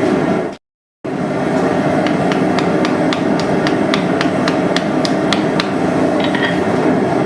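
Rapid hammer blows on hot steel, about four to five strikes a second for a few seconds, over the steady roar of a forge burner.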